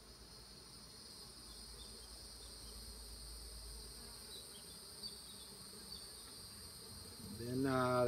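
Honeybees buzzing faintly around a frame of comb lifted from an open top bar hive, over a steady high-pitched insect drone. A man's voice starts near the end.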